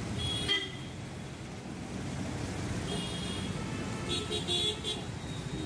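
Street traffic with vehicle horns honking: a short toot about half a second in, another around three seconds in, and a longer run of honks about four to five seconds in. Under it is a steady hiss of traffic and oil frying in a large wok.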